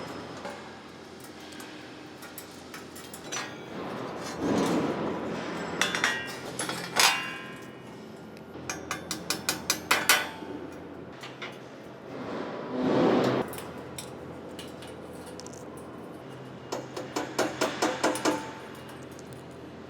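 Metal fire-pit parts being worked during deburring: quick runs of about seven sharp metallic taps, twice, between short scraping strokes about a second long.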